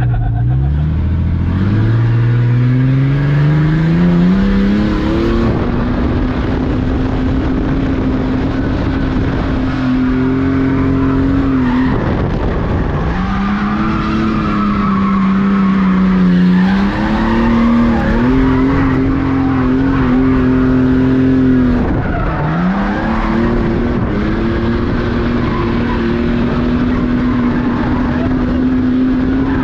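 Ford Falcon drift car's engine revving hard and held at high revs while its tyres squeal through a drift. The engine note climbs over the first few seconds, drops sharply about twelve and twenty-two seconds in, then climbs back up.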